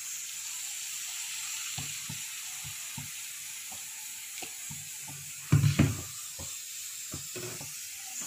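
Masala paste sizzling steadily in hot oil in a kadai, stirred with a wooden spatula that scrapes and knocks on the pan, with a short cluster of loud knocks about five and a half seconds in.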